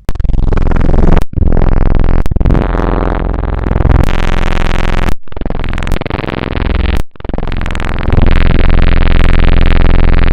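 Loud, distorted electronic synthesizer noise with sweeping pitches, a glitchy sound effect that cuts out abruptly and starts again a few times.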